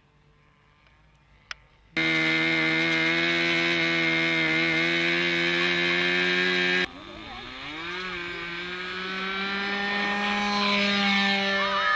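OS 46 two-stroke glow engine of a model airplane running at high throttle, a loud steady high buzz. About five seconds in it cuts to a quieter, more distant engine sound that rises in pitch and grows louder as the engine opens up for the takeoff run.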